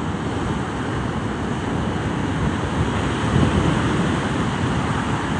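Rough, choppy sea surf rolling in and breaking, a steady rushing wash, mixed with wind buffeting the microphone.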